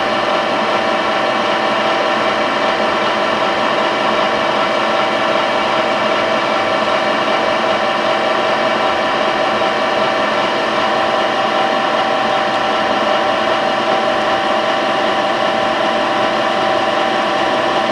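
Electric shaft mixer running steadily, its blade stirring pigment powder into boiled linseed oil in a metal pail: a constant motor whine made of several held tones over a mechanical hiss.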